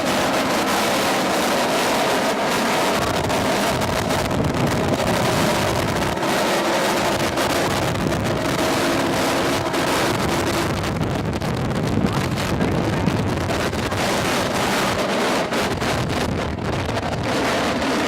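Helicopter running close by: a loud, steady rush of rotor and engine noise with a faint whine, and wind buffeting the microphone.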